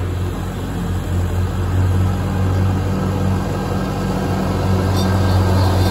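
1956 Ford 640 tractor's four-cylinder engine running steadily with the throttle raised above idle while mowing with a rear 5-foot finish mower.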